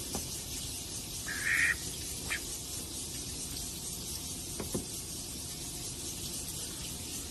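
Domestic duck giving one short quack about a second and a half in, over a steady hiss, with a couple of faint clicks later on.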